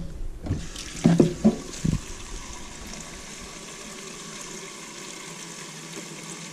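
Kitchen faucet running into a plastic measuring pitcher held in a stainless steel sink: a steady rush of water, with a few knocks in the first two seconds.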